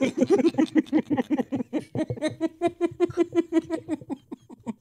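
Several men laughing hard together in quick, rhythmic bursts of 'ha-ha', about five a second, tapering off near the end.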